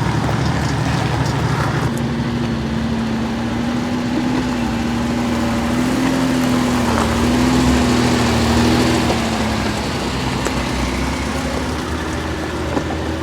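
Off-road vehicle's engine running, with a steady drone that wavers slightly in pitch for several seconds before easing off near the end.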